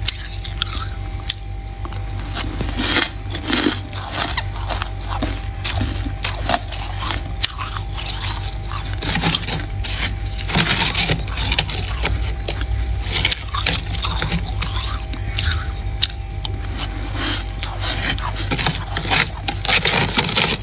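Metal spoon scraping and scooping into thick, squeaky freezer frost: a dense run of crunchy scrapes and crackles, one after another.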